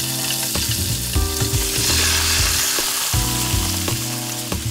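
Chicken breasts sizzling skin side down in hot olive oil in a skillet: a steady hiss of frying. Low background music plays underneath.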